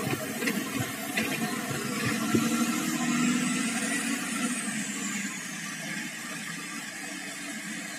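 Sawmill machinery running, a steady mechanical drone that swells slightly in the middle, with a faint high whine that rises and falls.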